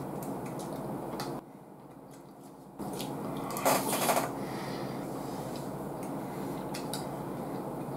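Eating sounds over a steady low hum: a metal spoon clicking against a small bowl a few times, with one louder noisy mouthful from the spoon about four seconds in.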